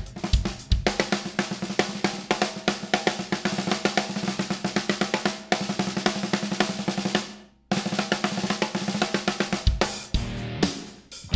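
A 6x14 10-ply bubinga snare drum with 30-strand snare wires played in fast strokes and rolls, with bass drum hits. The playing fades out and stops briefly about halfway through, then picks up again, with heavier bass drum hits near the end.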